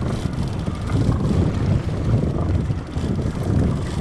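Outboard fishing boat under way at trolling speed: a steady low drone of motor and water, with wind buffeting the microphone.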